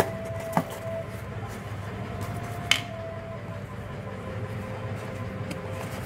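Cardboard box packaging being handled: a few sharp taps and clicks as the cardboard insert is lifted out of the box, the loudest about three seconds in, over a steady low hum.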